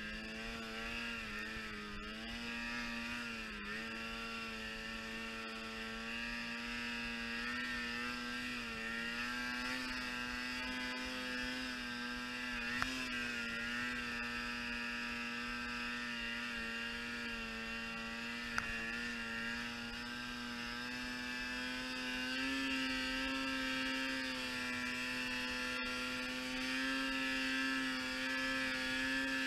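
Snowmobile engine running at high, steady revs as the sled climbs through deep powder. The revs dip briefly twice near the start and rise a little about three-quarters of the way through, with two short clicks in between.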